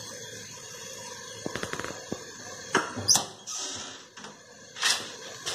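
Kitchen handling sounds as a plastic bowl of curd is emptied into an aluminium pressure cooker: a quick run of small clicks, then a few sharper knocks.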